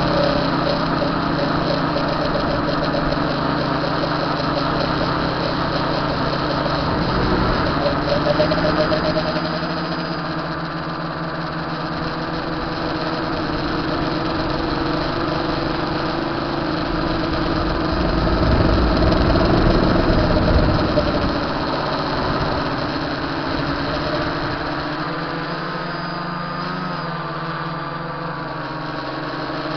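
Tricopter's three electric motors and propellers buzzing in flight, several steady tones drifting up and down in pitch. A louder, rougher rumble comes about two-thirds of the way through.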